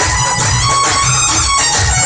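Loud amplified dance music with a steady beat and a sustained high melody line over it.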